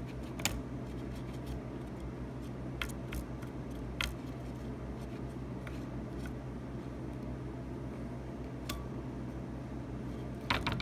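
Cotton swab scrubbing flux residue off a laptop motherboard: scattered light clicks and scrapes as the swab tip catches on the soldered components, with a small flurry near the end, over a steady low hum.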